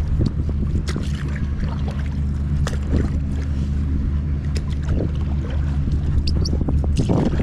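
A low, steady motor drone with scattered short clicks and knocks over it.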